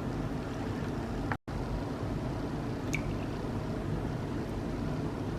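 Frozen goat's milk cubes being stirred together with lye in a container, over a steady low background noise. The sound drops out briefly about a second and a half in, and there is a single light tick about three seconds in.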